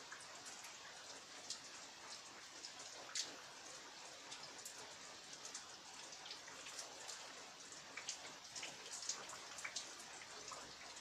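Rain falling behind a house: a steady hiss with many separate drops ticking sharply at irregular moments.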